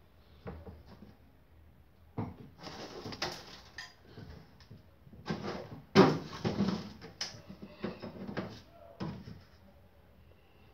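Kitchen handling clatter as the freezer is opened and the chilled slime is taken out: a string of knocks and rattles, with the loudest knock about six seconds in.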